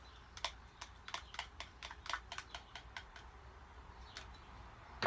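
Light, irregular clicking taps, a few a second, as a spoon and plastic containers are handled while lotion is transferred into a mixing bowl.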